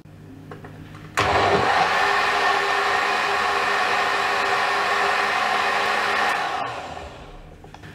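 Countertop blender motor starting about a second in and running steadily for about five seconds while puréeing hot tomato soup, then winding down near the end.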